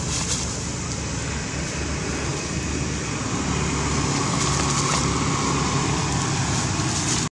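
Steady outdoor background noise with a low rumble underneath, like distant traffic; no calls from the monkeys stand out.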